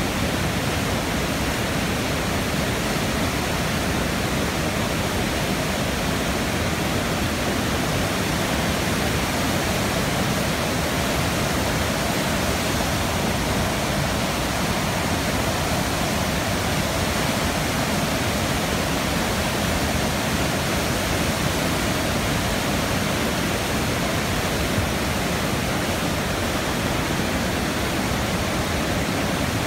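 Saluda River in flood just below the open floodgates of the Dreher Shoals Dam, rushing through whitewater rapids with a steady, unbroken roar of water.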